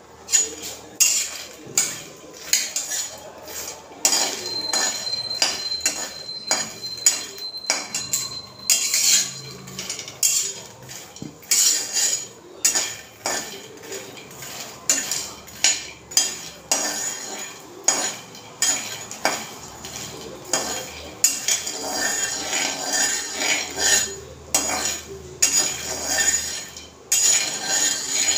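Long steel spatula stirring fox nuts (makhana) as they dry-roast in an empty metal kadhai, with repeated irregular clinks and scrapes of metal on the pan. The clinking becomes denser, more continuous scraping for the last several seconds.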